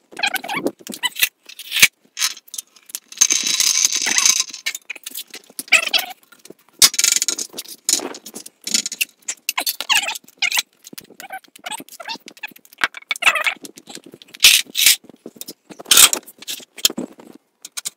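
Irregular clicks, clinks and rattles of hand tools and metal car-lift parts being handled, with two short hisses, one about three seconds in and one about seven seconds in.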